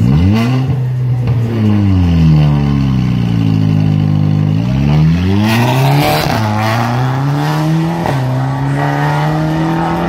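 Rally car engine revving up and down at the start line, then the car launches hard about five seconds in with a burst of tyre noise. The engine then climbs through the gears as it pulls away, its pitch dropping sharply at two upshifts.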